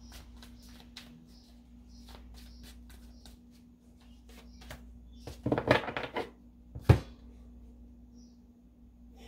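Deck of tarot cards being shuffled by hand, the cards giving soft clicks about three times a second. Then comes a louder burst of card rustling and a single sharp knock as the deck is set down on the table.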